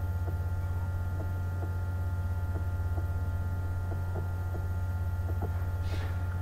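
Steady electrical hum with a stack of overtones, under faint regular ticks about twice a second; a brief hiss about six seconds in.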